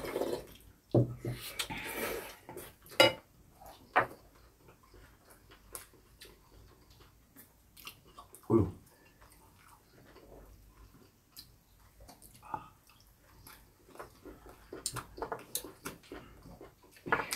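Eating at a table: chopsticks and spoons clicking against ceramic bowls and dishes, with chewing. Among the light clinks come a few louder knocks.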